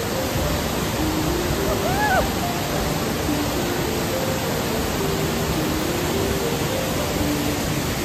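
Waterfall rushing steadily, with soft background music of slow single notes under it.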